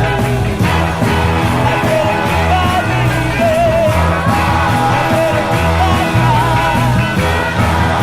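A soul oldie record playing: a steady bass and drum beat under a wavering lead melody line.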